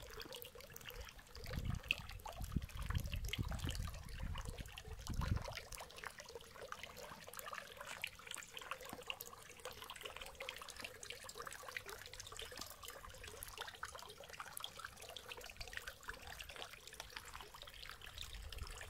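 Drinking-water fountain running: water splashing and trickling from the spout into its trough in a steady patter. A low rumble comes in about a second and a half in and stops about five and a half seconds in.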